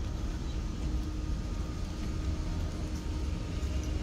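Low, steady outdoor background rumble with a faint steady hum running under it.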